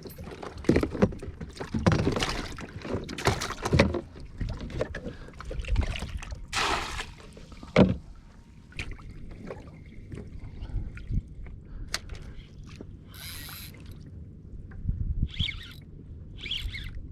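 Water slapping and knocking against the hull of a small fishing boat, in irregular bursts with some handling knocks, heaviest in the first half.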